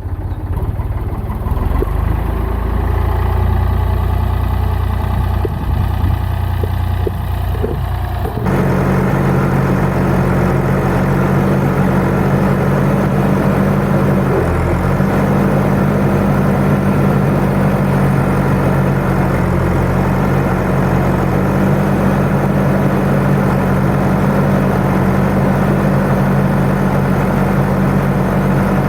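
Farm tractor engine running steadily. About eight seconds in, the sound switches abruptly from a low rumble with wind noise to a closer, louder, steady engine drone.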